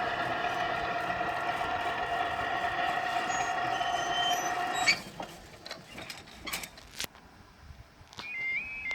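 Level crossing audible alarm sounding as a steady, pitched tone, which cuts off abruptly about five seconds in. A few clicks follow, and near the end a short electronic jingle begins.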